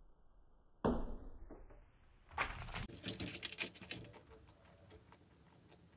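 Bearded dragon crunching food: a sudden loud crackle about a second in, another about two and a half seconds in, then a run of quick sharp clicks that thin out.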